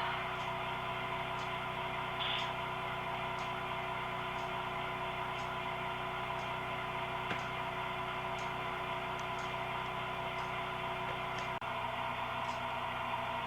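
HO-scale model train running: a steady electric hum of several held tones, with faint light ticks about once a second.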